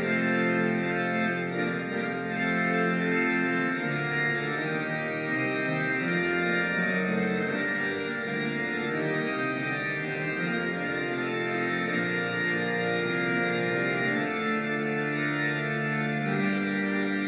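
Organ music: sustained chords held for a second or two at a time, with the notes shifting from chord to chord.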